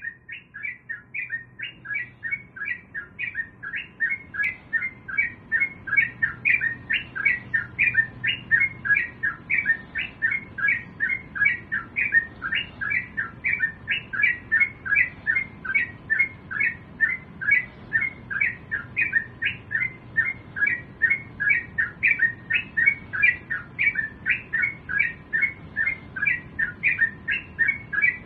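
Yellow-vented bulbul (trucukan) calling in a rapid, unbroken string of short repeated notes, about three a second and steady in rhythm. This is the lively singing that keepers play as a lure to get young trucukan to start singing.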